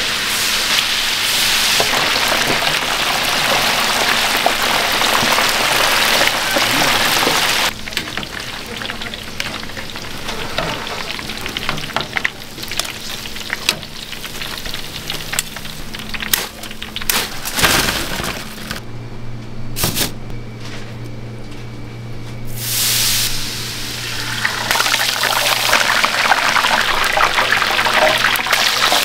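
Battered Korean fritters and dumplings deep-frying in a pot of hot oil, a dense sizzle. About eight seconds in it thins to a lighter crackle with scattered pops, then swells again over the last few seconds.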